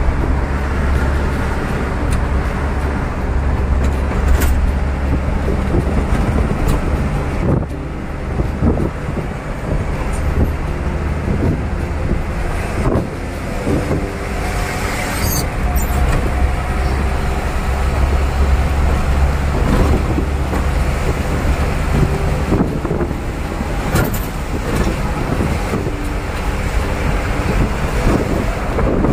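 Hino Dutro light truck's diesel engine and road noise heard inside the cab while cruising at highway speed: a steady low drone, with the engine note shifting now and then and occasional short knocks and rattles.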